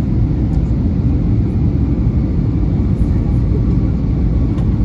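Steady, deep cabin noise of an Airbus A321 airliner in flight on descent: engine and airflow noise heard from a window seat inside the cabin.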